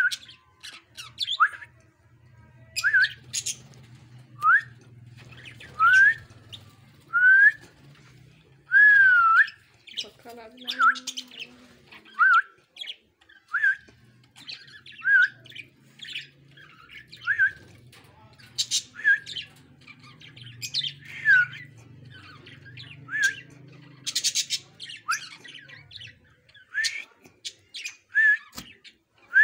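Budgerigars calling: a string of short upswept chirps, about one a second, mixed with scratchy squawks and chatter.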